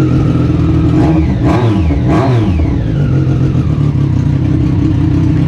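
Triumph Street Triple RS 765 cc inline-three engine running with no muffler fitted, idling loud and raw with two quick throttle blips, about one and a half and two seconds in.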